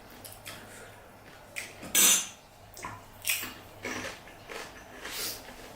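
Eating at the table: a series of short clinks and knocks of dishes and cutlery, the loudest about two seconds in.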